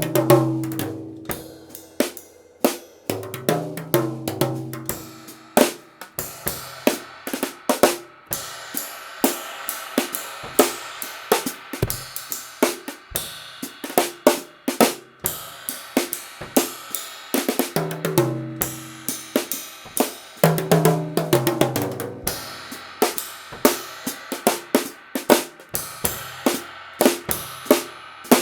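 Drum kit played with thin rods: a steady groove of snare, bass drum and hi-hat under the wash of a home-modified cymbal, broken by tom fills near the start, around four seconds in and again about two-thirds of the way through.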